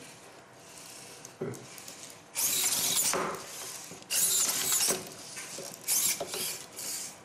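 Servo motors of the small humanoid robot Robi whirring in short spurts as it moves its limbs and body: four separate bursts, each up to about a second long.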